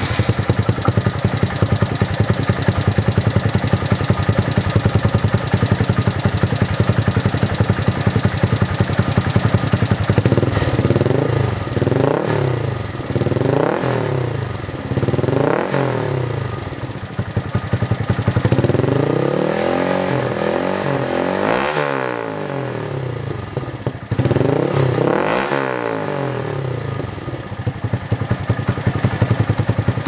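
Honda Monkey 125's single-cylinder four-stroke engine through a Supertrapp disc exhaust, idling steadily for about ten seconds, then blipped several times and given two longer revs. Revved, it has a vintage-sounding growl.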